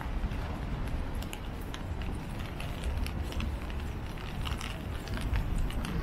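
Rainy city street ambience: a steady low rumble with many small scattered ticks and clicks, as of rain and footsteps on wet pavement.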